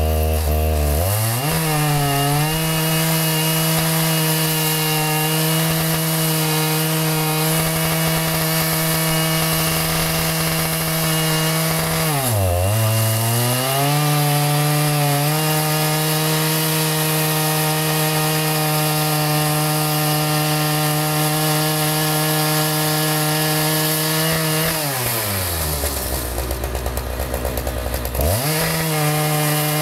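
Chainsaw engine running at high revs while ripping through a maple log. The revs drop and recover quickly about twelve seconds in, then fall to a low rev for a couple of seconds near the end before climbing back up.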